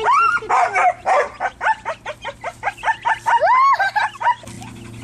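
A leashed dog whining with excitement: a quick run of short high yips with two longer whines that rise and fall, one at the start and one past the middle. The cries stop shortly before the end.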